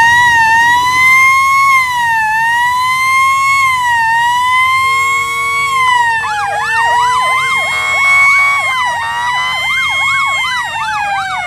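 Boat sirens sounding: one siren winds up in pitch just before and holds a slow, wavering wail, and about six seconds in a second siren joins with a fast up-and-down yelp.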